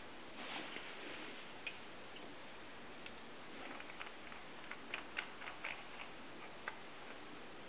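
Faint handling noise from a plastic powder-bait compressor: a soft rustle near the start, then scattered small clicks as its barrel and threaded plunger rod are fitted together, with a quick run of clicks about five seconds in.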